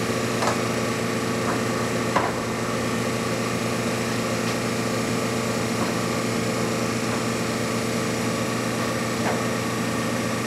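Clausing 1250 Magnum lathe running under power, its 30 hp main motor and geared headstock giving a steady even hum with the spindle turning at about 630 RPM. A few light clicks sound over the hum, the clearest about two seconds in.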